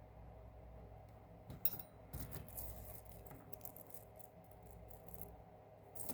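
Metal costume jewelry clinking and rattling faintly as it is handled, a scatter of small light clicks.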